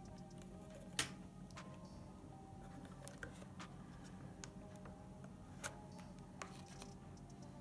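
Sharp plastic clicks and taps as T5 bulb sockets with LEDs are pressed and twisted into the back of a Honda Civic instrument cluster's circuit board; the loudest click comes about a second in, another near the six-second mark, with lighter ticks between.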